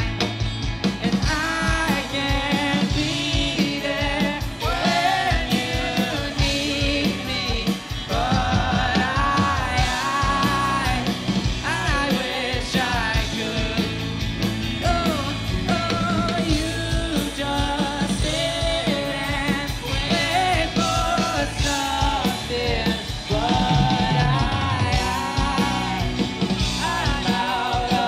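Live rock band playing: lead vocals sung over electric guitars, bass guitar and a drum kit.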